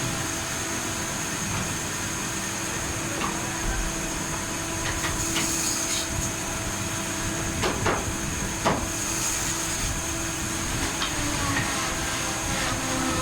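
Woodworking workshop noise: a steady machine hum with a few sharp knocks, two of them about eight and nine seconds in.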